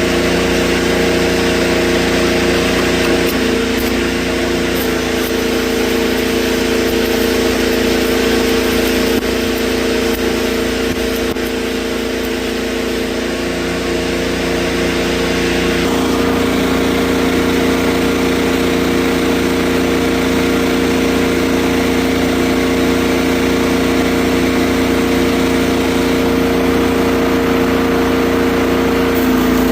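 Freshly rebuilt diesel engine of a Mustang skid steer running steadily, its note changing slightly about halfway through.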